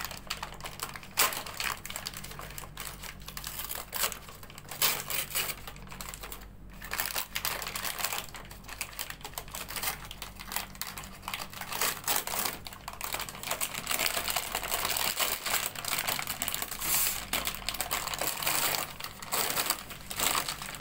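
Clear plastic bag and cloth wrapper crinkling and rustling as a sterile instrument tray is unwrapped by hand, with many quick, irregular crackles.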